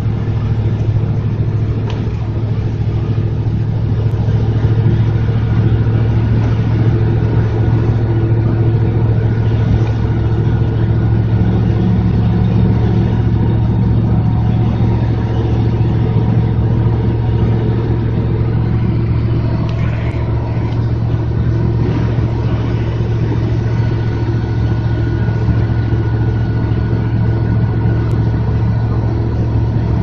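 1996 GMC pickup's V8 running at steady cruising speed, heard from inside the cab as a constant low drone over tyre and road noise.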